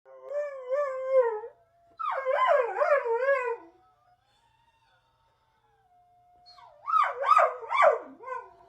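A dog howling in three bouts, its pitch wavering quickly up and down, with a faint steady held note between the bouts.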